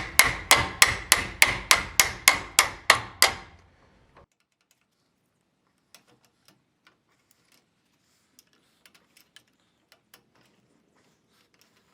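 About a dozen sharp metal-on-metal strikes, roughly three a second, each with a short ring, as a tool is used to hammer at a seized bolt on a boat trailer winch. They stop after about three seconds, leaving only a few faint clicks.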